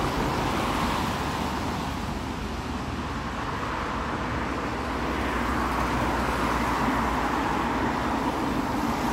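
Road traffic: a steady hum of cars passing, swelling and easing slowly as vehicles go by.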